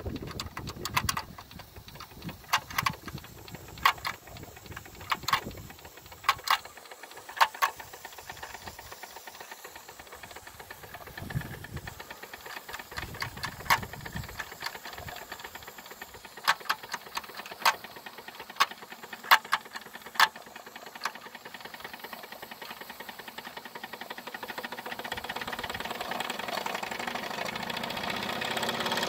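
Wilesco D21 live-steam model engine running: a steady rattle of the working parts with sharp clicks coming irregularly, the running noise growing louder over the last several seconds.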